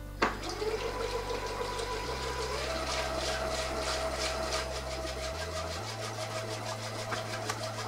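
Moulinex cooking food processor's motor running with its whisk attachment, beating eggs with vanilla to a froth. It starts with a click just after the beginning, and its whine steps up in pitch about two and a half seconds in, then holds steady.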